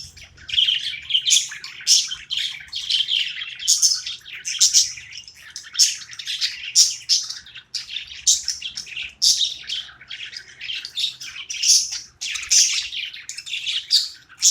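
Budgies chirping and chattering, a continuous stream of short high chirps.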